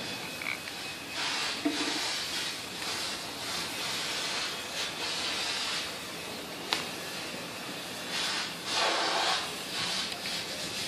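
Handling noises from work at the timing-belt pulleys of an Isuzu 4JG2 engine: irregular rubbing and scraping of hands and parts over a steady hiss, with one sharp click about two-thirds of the way through.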